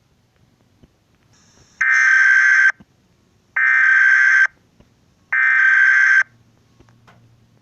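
Three bursts of Emergency Alert System digital data tones (SAME), a harsh warbling buzz, each just under a second long and about a second apart.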